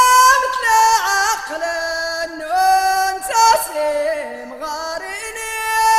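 Amazigh rways song: a voice sings a melodic line with sliding ornaments over the accompaniment, holding a long note near the end.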